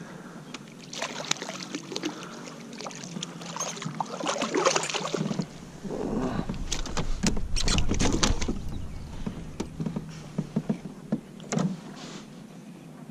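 A striped bass being landed in a plastic kayak: splashing and a run of knocks and clicks as the fish is swung aboard and flaps against the hull, with a louder stretch of rumbling handling noise in the middle.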